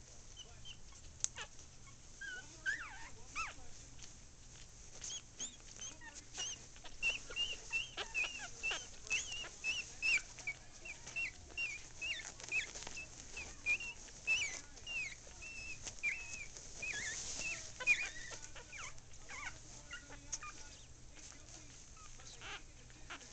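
Ten-day-old Yorkie Poo puppies squeaking and whimpering: a run of short, high squeaks, a couple a second, thickest through the middle, with scattered soft clicks and rustles.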